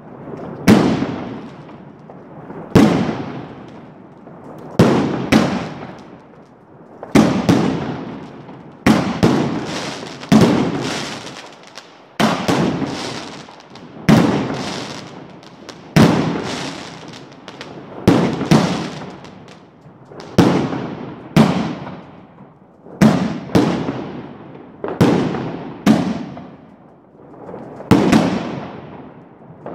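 Aerial fireworks bursting in the sky: a sharp bang about every one and a half to two seconds, each dying away over a second or so.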